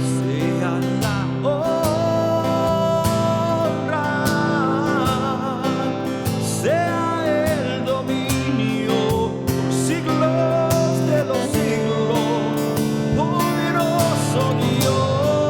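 Worship band music: acoustic guitar playing sustained chords under a slow, wavering melody line that sounds like singing without clear words.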